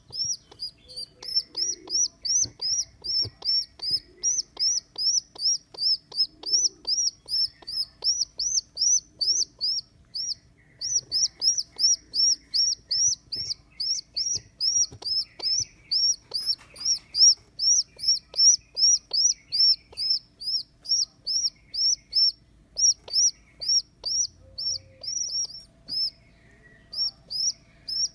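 Baby pigeon squeaking: a steady run of high, thin peeps, each rising and falling in pitch, about three a second, with a couple of brief pauses.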